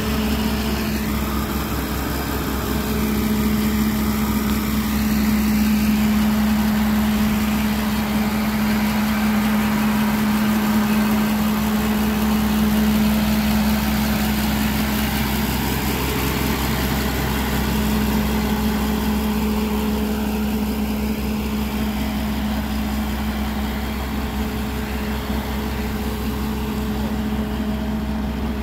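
The diesel engine of a NUHN Lagoon Crawler manure-lagoon agitator idling, a steady hum that holds one pitch.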